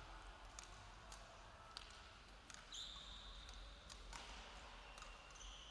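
Faint badminton court sounds echoing in a sports hall: scattered sharp taps and knocks, and two drawn-out high squeaks of court shoes on the sprung floor, one about halfway through and another starting near the end.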